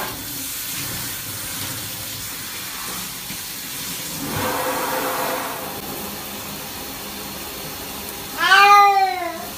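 Domestic cat giving one long, loud meow near the end, rising and then falling in pitch, while it is being showered. A steady hiss of running shower water goes on underneath.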